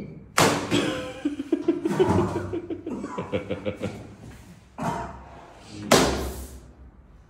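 A stretched rubber band snaps back with a sharp smack about half a second in, followed by a pitched vocal cry lasting a few seconds. Two more short smacks come near the end.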